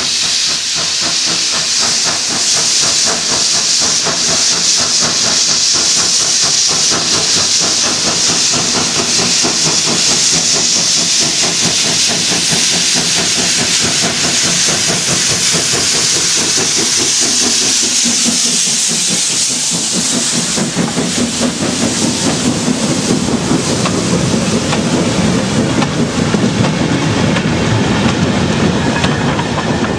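Saddle-tank steam locomotive working hard toward the listener with its cylinder drain cocks open: a loud steady hiss over a rapid beat of exhaust. About twenty seconds in the hiss eases and a deeper rumble and clatter take over as the engine and a brake van pass close by.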